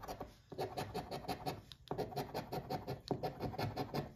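A coin scratching the coating off a paper scratch-off lottery ticket in quick back-and-forth strokes, pausing briefly twice.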